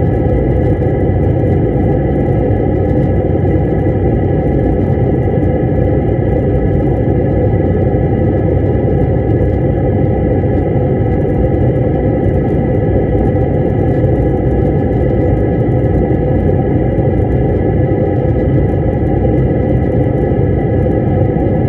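Airliner cabin noise during descent: an even rumble of jet engines and airflow, with a few faint steady high-pitched tones above it and no change throughout.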